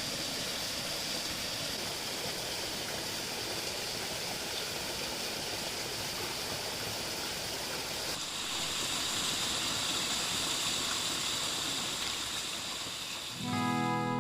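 Stream water running with a steady rush, turning brighter about eight seconds in. Acoustic guitar music starts just before the end.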